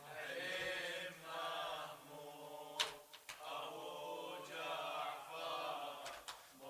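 A group of mourners chanting a latmiya refrain together in drawn-out phrases, quieter than the lead reciter, with a few sharp knocks.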